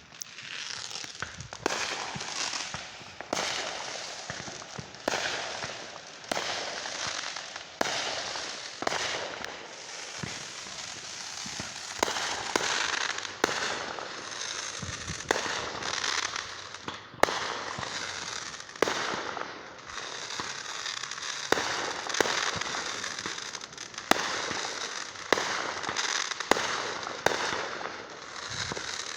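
Fireworks going off continuously: sharp bangs every second or two over steady crackling.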